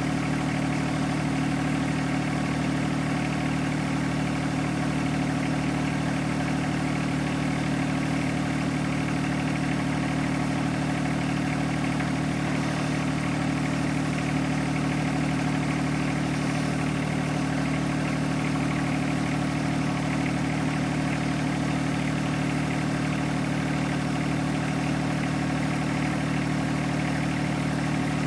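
John Deere 1025R compact tractor's three-cylinder diesel engine running at a steady speed, with no change in pitch or loudness.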